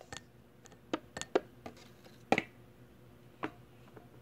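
Light clicks and taps of small objects being handled, about ten scattered over a few seconds, the loudest about two and a half seconds in.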